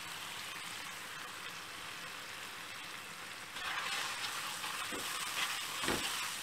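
Gochujang-and-ketchup sauce sizzling in a hot frying pan, the steady hiss growing louder a little past halfway. There are a couple of light knocks near the end.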